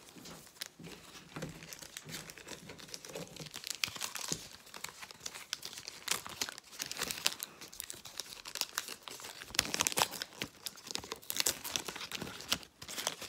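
Plastic foil trading-card pack wrapper crinkling and being torn, in irregular crackles that come in louder clusters several times.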